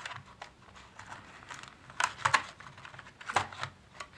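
Scissors snipping the rubber bands that hold a small plastic toy figure in a clear plastic blister tray: a few sharp clicks, the loudest about two seconds in and again just past three seconds.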